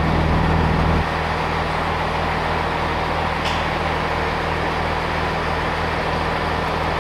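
Diesel multiple unit standing with its engine idling, a steady low hum that drops slightly about a second in.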